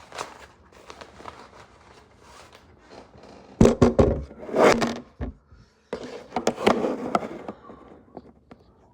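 Hands handling and opening a small packaged item: rustling, scraping and clicking, with a few loud thumps and bumps about four to five seconds in.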